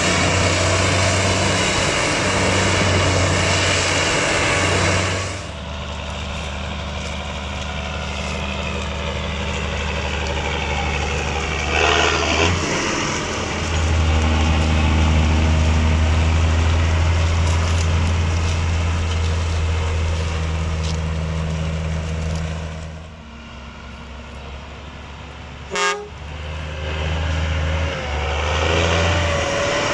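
Diesel engines of maize silage machinery, forage harvesters and tractors, running steadily in several shots cut together, the engine note changing abruptly at each cut. A brief sharp knock comes late on.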